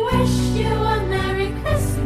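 Background Christmas music: a carol arrangement with a melody over held bass notes.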